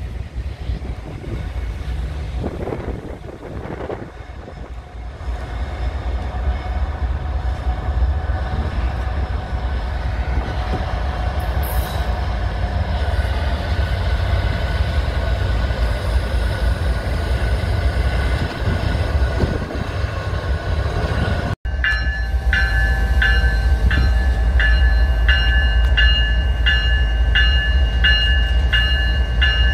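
CSX GE diesel freight locomotives approaching and passing, a deep engine rumble that grows louder. After a cut about 22 seconds in, the rumble is louder still and joined by a high ringing that pulses about one and a half times a second.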